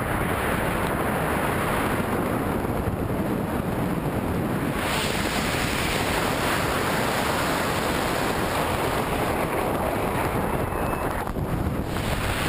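Steady wind rushing over a hand-held camera's microphone during a tandem parachute descent under open canopy; the rush turns brighter and hissier about five seconds in.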